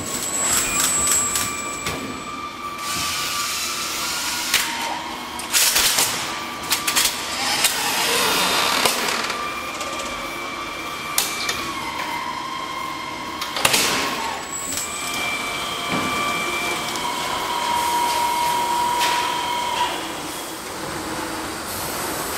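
ORGAPACK fully automatic plastic-strap strapping machine running its cycles: motor whines that hold a pitch, then step to another, broken by several short loud hissing clacks.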